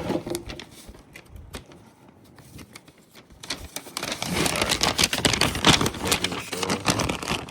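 Bundled wires of a new automotive wiring harness being handled and sorted: scattered clicks and rustling, sparse at first, then denser and louder from about four seconds in.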